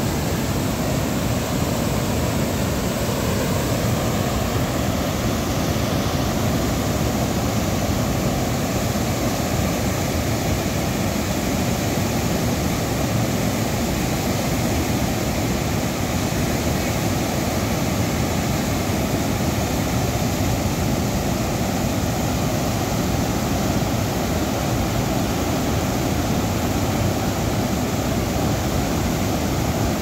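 Water pouring over a full village tank's surplus weir (mattadi) and tumbling down the spillway: a loud, steady rush of falling, churning water.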